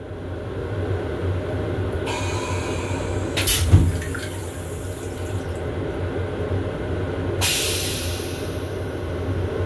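M7 railcar toilet flushing: water hisses into the stainless bowl about two seconds in, a sharp thump sounds just before four seconds, and a second hissing spray starts near the end and fades, all over the car's steady hum.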